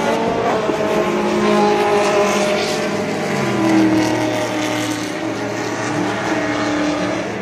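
Race car engines running on a circuit, several at once, their pitch rising and falling as the cars accelerate and lift off; a lower engine note joins about halfway through.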